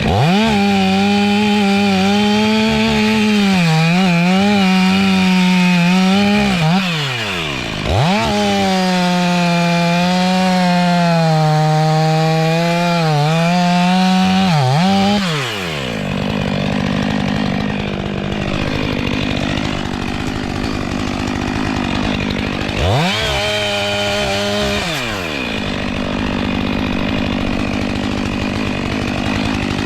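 Stihl MS 500i fuel-injected two-stroke chainsaw held at full throttle for two long stretches of about seven seconds each, its pitch wavering, then dropping to idle. It idles for several seconds with one short burst of throttle, then starts to rev again at the end.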